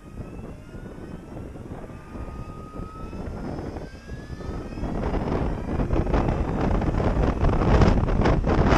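Electric motorcycle accelerating: a faint rising motor whine, then wind rushing over the microphone grows loud from about halfway as the speed climbs.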